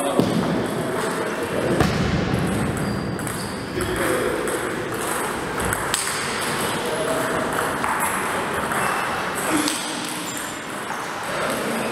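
Table tennis ball clicking off bats and pinging on the table in a rally, with more ball bounces and voices in the background.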